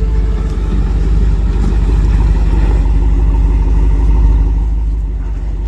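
Off-road vehicle engine running hard under load, a loud, steady low rumble.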